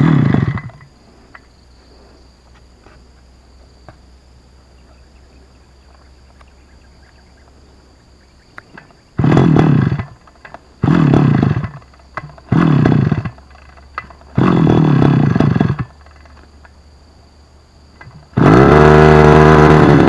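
Backpack brush cutter's small petrol engine being pull-started and failing to catch: one pull at the start, then four more pulls in quick succession a few seconds apart, each a short burst that dies away. About two seconds before the end the engine catches and runs steadily.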